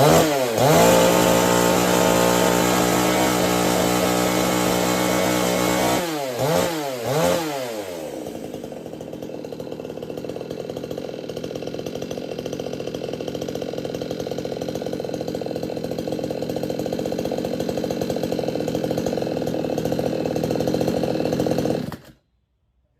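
A 58 cc two-stroke chainsaw engine being revved. It gets a few quick throttle blips, is held at high speed for several seconds, gets two more blips, then drops to a steady idle. The sound cuts off suddenly near the end.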